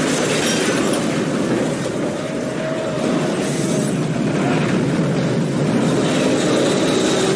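Film sound effects of a tornado: a loud, continuous rumble of rushing wind and debris, with a faint held whine about three seconds in.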